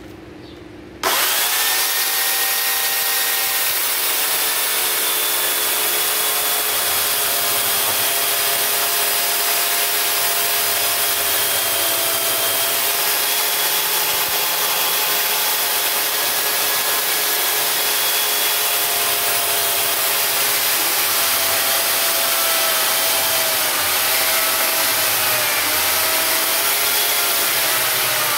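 Corded Makita electric chainsaw switched on about a second in and cutting into a block of wood: a steady high motor whine whose pitch dips and wavers slightly as the chain bites.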